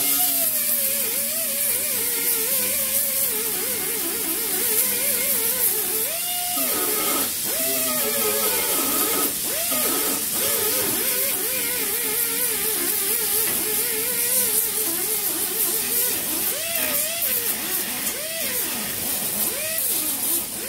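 Small air-powered grinder on an air hose running against the Jeep's rocker sheet metal, its whine wavering and dipping in pitch several times and then stopping suddenly at the end. The uneven running is put down by the owner to ice in the air lines.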